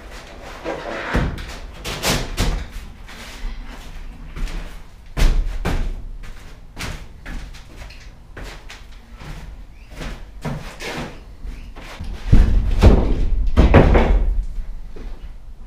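Knocks and heavy thumps of OSB subfloor panels being set down and worked into place over foam board on a box-truck floor, mixed with footsteps and handling. Many separate thuds, with a loud one about five seconds in and a cluster of the heaviest near the end.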